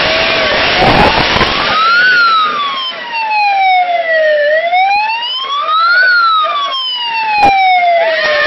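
Vehicle siren in a slow wail, rising and falling twice, with crowd shouting and whooping at the start. A single sharp knock comes near the end.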